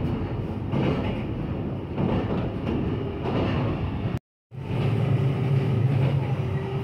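In-cabin running noise of the JR Kyushu Kamome limited express at speed: a steady rumble of wheels on rails. The sound cuts out for a moment just after four seconds in, and a steady hum joins near the end.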